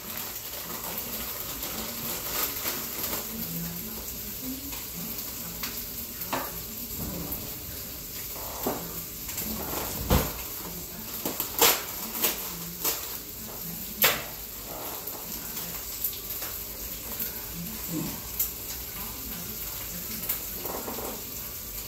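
Plastic bag of broccoli rustling and crinkling as it is handled and cut open, with sharp crackles loudest in the middle of the stretch. A steady hiss runs underneath.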